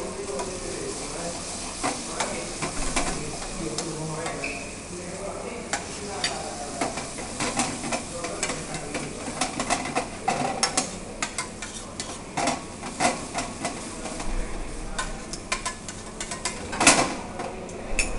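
Cream sauce simmering and sizzling in a steel frying pan over a gas flame, stirred with a metal fork that scrapes and clicks against the pan. A sharper clink of cutlery near the end.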